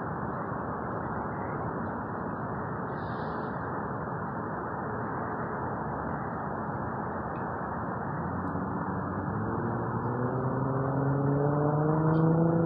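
Steady low outdoor rumble of jet engines and street traffic. In the last few seconds a road vehicle passes close by, its engine tone growing louder and climbing slightly, then starting to drop as it goes past.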